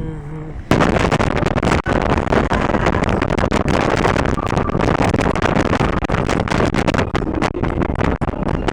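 Wind buffeting the microphone: a loud rushing noise with crackles that starts abruptly under a second in.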